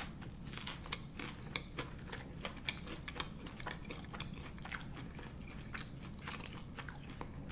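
Close-mic chewing of a batter-fried seaweed roll (gimmari): many small, soft crunches and mouth clicks, a few each second, over a steady low hum. The batter, two parts flour to one part starch, is only lightly crunchy.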